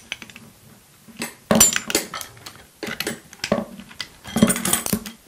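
Steel combination wrench clinking and knocking against a bolt and the metal light-stand frame as the bolt is cranked down: a string of irregular metallic clinks, the loudest about a second and a half in and again near the end.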